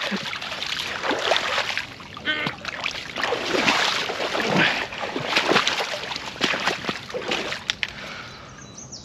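Water splashing and sloshing as a landing net holding a heavy carp is lifted out of shallow water, then scraping as the net is dragged over the muddy bank. The sounds come in irregular bursts and die down near the end.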